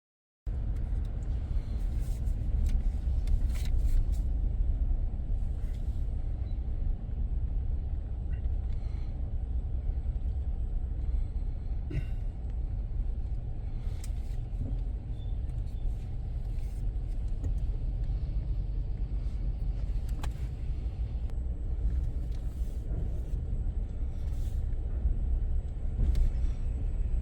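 Steady low vehicle rumble with scattered light clicks and knocks, starting abruptly about half a second in.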